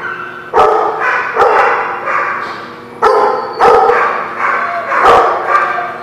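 Dogs barking during play, about six loud barks a second or so apart, each trailing off with some echo.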